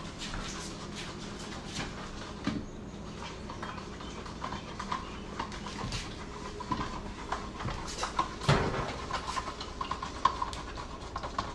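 Small kitten mewing repeatedly in short, high calls, mixed with scattered light clicks and taps.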